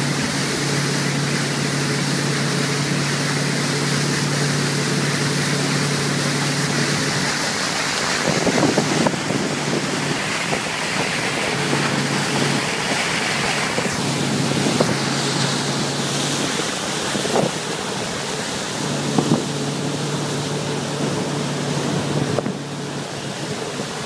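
Motorboat running with a steady low hum under the rushing of its churning wake and wind buffeting the microphone. The hum drops out for stretches in the middle, and a few short knocks come through.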